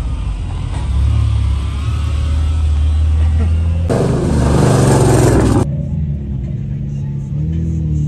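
Car engines and exhausts running as cars drive slowly past, with a deep, steady rumble. About four seconds in, a loud burst of exhaust noise lasts under two seconds as a black Dodge Charger passes, then cuts off to a lower engine idle.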